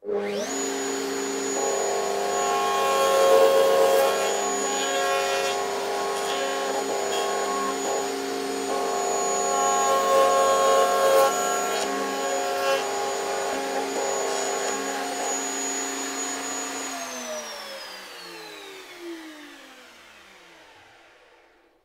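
Table-mounted router cutting dovetails through a Gifkins dovetail jig: a steady whine that swells twice as the bit cuts into the wood. About seventeen seconds in it is switched off and winds down, falling in pitch and fading away over the next few seconds.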